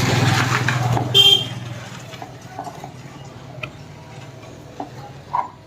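A motor vehicle passing by, loudest at first and fading over about two seconds, with a short horn toot about a second in. Afterwards only a few faint clicks and taps.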